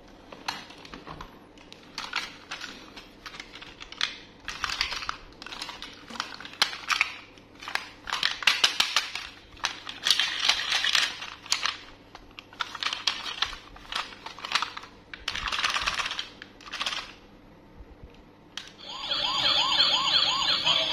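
Hard plastic toys clattering and rattling in repeated bursts as they are rummaged through and lifted out of a cardboard box. Near the end, a battery-powered toy police car switches on its electronic siren, a fast, repeating warble.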